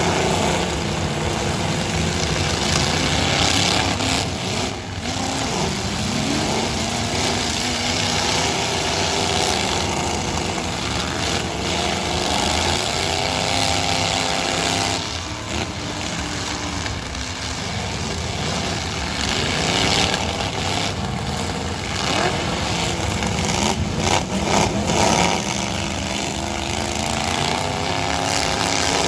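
Many pickup truck engines revving and racing at once in a demolition derby, their pitch rising and falling over one another. Now and then a sharp bang as the trucks ram each other.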